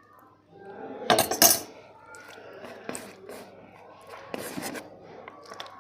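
Cutlery clinking and scraping on a plate of biryani, with a cluster of loud clinks about a second in and lighter clicks after.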